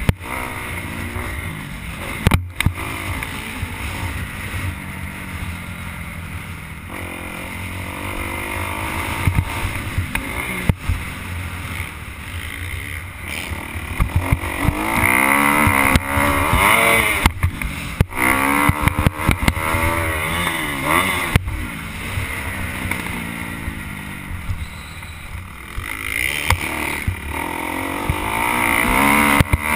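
Motocross bike engine revving up and down as the rider works the throttle around a dirt track, heard from a helmet camera, with wind noise over the microphone and a few sharp knocks.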